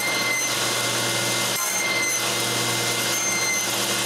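Table saw running steadily, its blade cutting a notch in a maple block, with the cutting hiss rising and falling as the wood passes over the blade.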